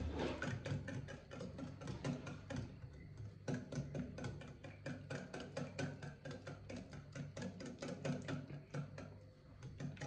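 Wire whisk beating eggs into melted margarine and brown sugar in a bowl: rapid, even clicks of the whisk wires against the bowl.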